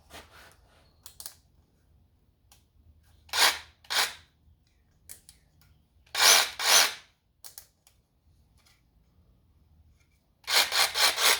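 DeWalt 20V cordless jigsaw run in short bursts on its speed-sensitive trigger: two quick bursts, then another two, then four in rapid succession near the end.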